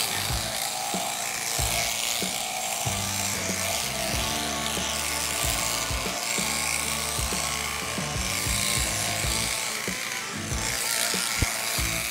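Background music with a beat, over the steady buzz of an electric sheep-shearing handpiece cutting through fleece.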